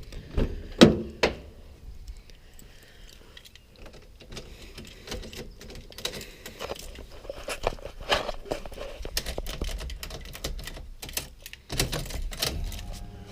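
Clicks, knocks and jangling of a car door and keys being handled, with two sharp knocks about a second in and quicker clicking later on. Near the end a steady mechanical hum begins.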